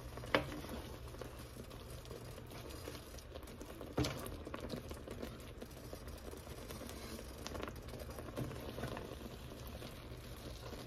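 A spoon stirring a thick cream-cheese and sour-cream dip mixture in a heated skillet, with a few knocks of the spoon against the pan, the loudest about four seconds in. A steady low hum runs underneath.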